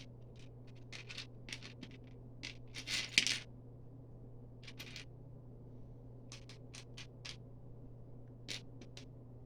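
Small plastic Lego pieces clicking and clattering as they are picked through and handled, with a louder rattle of pieces about three seconds in.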